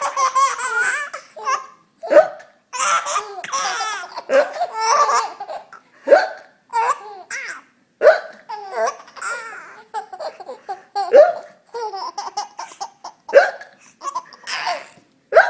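Fake hiccup sounds, a short sharp "hic" every two to three seconds, each answered by a baby's high-pitched laughter.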